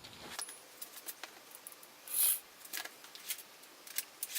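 Handling noise of tools being picked up and set down: scattered small clicks and taps, with a short scraping rustle about two seconds in.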